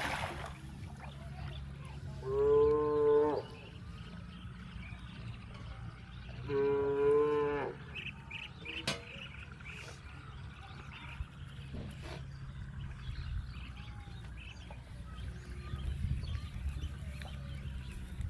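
A cow mooing twice, each moo a pitched call of about a second, a few seconds apart, over a steady low hum.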